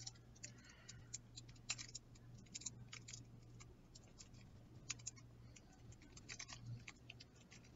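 Faint, scattered clicks and crinkles of fingers picking at the plastic wrapping of a trading-card starter deck that is hard to open, over a steady low hum.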